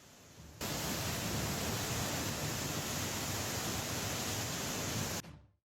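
A steady, even rushing noise that starts about half a second in, holds at one level, and cuts off abruptly near the end.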